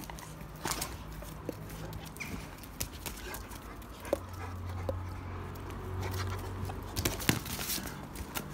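Dogo Argentino dogs whimpering and scuffling as they tussle over a toy, with scattered sharp clicks and a low rumble for about three seconds in the middle.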